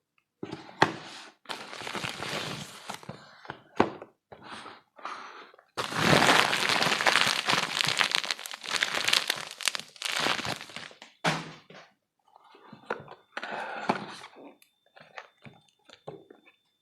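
Parcel packaging being handled and opened: irregular crinkling and crunching with sharp knocks, and a longer stretch of continuous rustling in the middle.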